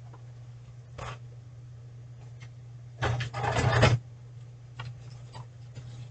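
Paper being rummaged and slid about: a brief rustle, then a louder scraping, rubbing rustle lasting about a second midway, then lighter rustling, over a steady low hum.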